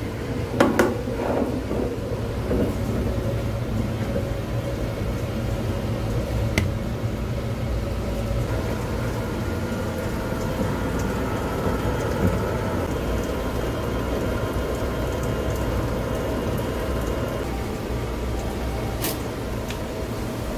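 Rice flour mill running steadily, a low hum under a rushing noise, as soaked rice is ground into flour. A few knocks come in the first two seconds, and there are two sharp clicks, one about six seconds in and one near the end.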